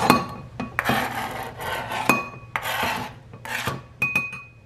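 Chef's knife blade scraping diced red onion off a plastic cutting board into a glass bowl, in a series of short scrapes with sharp clicks. The knife strikes the glass bowl twice, about two seconds in and near the end, each strike ringing briefly.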